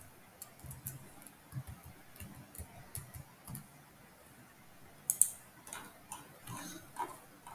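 Faint, irregular clicks and scroll-wheel ticks of a computer mouse, a few a second.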